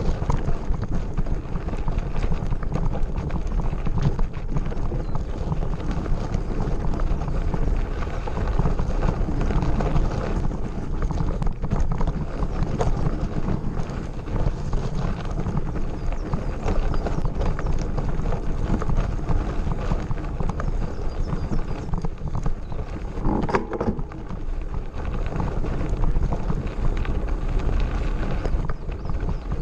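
Mountain bike ridden over a rough gravel forest road: a continuous rattling clatter of tyres and frame on loose stones over a heavy low rumble of wind on the microphone. A brief pitched squeal comes about three-quarters of the way through.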